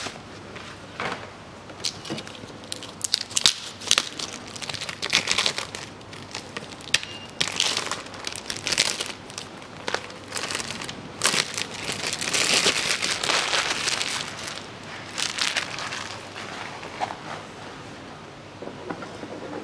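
Thin plastic wrapping being torn and crumpled off a new panel air filter: irregular crinkling and crackling in uneven bursts, busiest in the middle.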